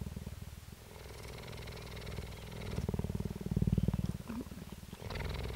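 Female cheetah purring, a low rapid pulsing that swells and eases in turn, loudest a little past the middle.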